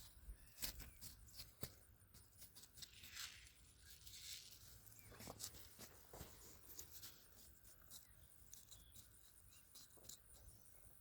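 Near silence, with faint scattered scrapes and clicks from hand work in garden soil: a pocket knife and fingers weeding among onion rows.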